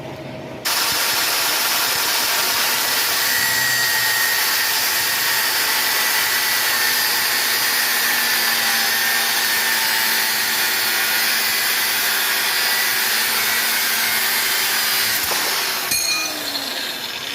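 A power tool switched on about a second in, running steadily on the knife steel for about fifteen seconds, then winding down near the end.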